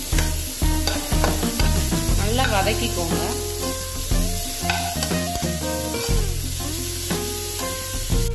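Background music with a steady low beat, over a spatula stirring grated carrot and onion frying in oil in a kadai, with a light sizzle.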